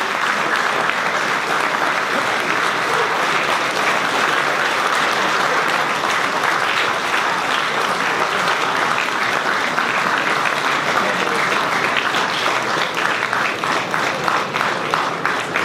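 Large audience applauding steadily, thinning into more separate claps in the last few seconds.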